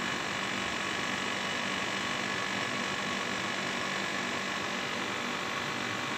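Commercial tumble dryer running, its electric drive motor and belt-driven drum giving a steady electric hum over an even mechanical whir. The drum turns only one way and does not reverse as it should.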